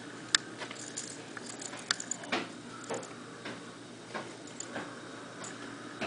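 Blizzard wind with blowing snow: a steady rush broken by irregular sharp ticks and patters of wind-driven snow and ice striking close to the microphone, the loudest about a third of a second in and again near two seconds in.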